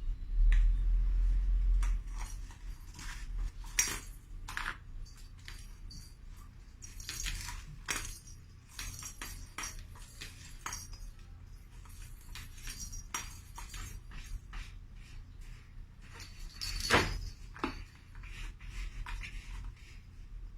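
Rattle toy mouse being batted and knocked about by a cat: irregular clicks, clinks and jingles, with a louder clatter near the end. A low rumble sits under the first two seconds.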